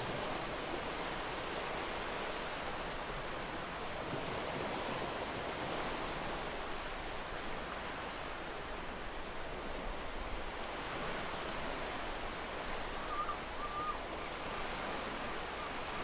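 Small ocean waves breaking and washing up onto a beach: a steady rushing surf with gentle swells.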